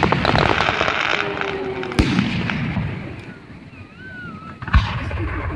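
Aerial firework shells bursting: dense crackling for the first second or so, then two sharp booms, about two seconds in and near the end.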